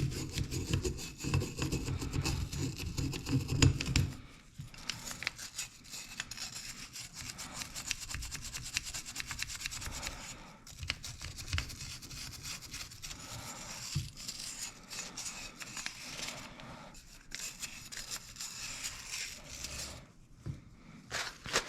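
Hand-held steel wire brush scrubbing the inside of a steel ratchet head: rapid back-and-forth scratching of bristles on metal, scouring out old grime. The strokes are harder for the first four seconds, then go on more lightly, with a short pause near the end.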